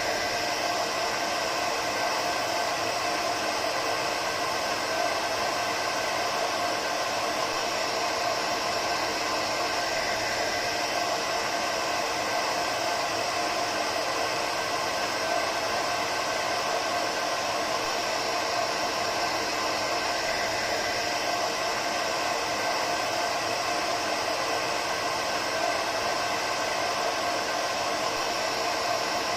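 Hair dryer running continuously, a steady airy rush with a faint motor whine.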